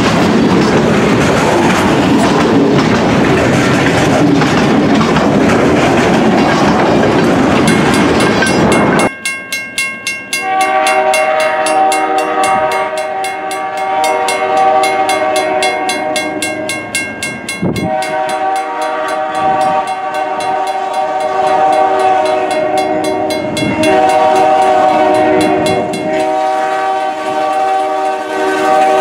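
Loaded freight cars rolling past with a steady rushing rumble and the clack of wheels over rail joints. About nine seconds in this gives way to the air horn of NBSR diesel locomotive 2319, a multi-tone chord sounded in four blasts with short breaks, the third blast shorter than the rest: the grade-crossing warning as the train reaches a road crossing.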